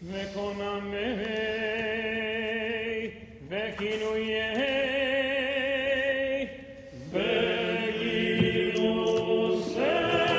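A man's voice chanting in long, wavering held notes, in the manner of Jewish liturgical prayer chant. It comes in three phrases with short breaks between them.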